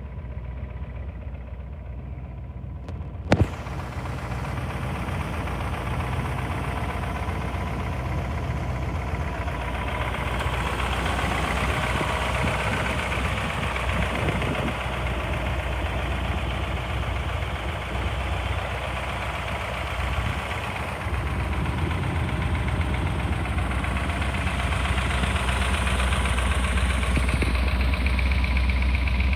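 Plymouth 426 Hemi V8 idling steadily. A single sharp click about three seconds in, and the engine sound grows fuller and louder toward the end.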